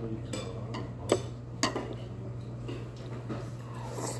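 Metal chopsticks clicking against dishes several times, the loudest click about a second in, over a steady low hum.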